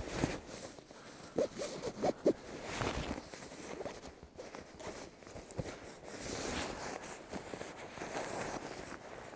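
Marmot CWM down sleeping bag with its Pertex Shield shell, and its compression sack, rustling as they are handled and pulled apart. There are a few short knocks between about one and a half and two and a half seconds in.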